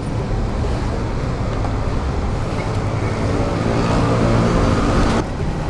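Gasoline running from a fuel-pump nozzle into a scooter's tank with the dispenser pump humming. The fill is slowed because the fuel keeps foaming up and gushing back. The flow stops suddenly about five seconds in.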